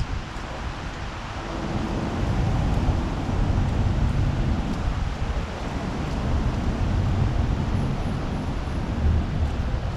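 Wind buffeting the microphone: a low rumbling rush that swells and eases in gusts.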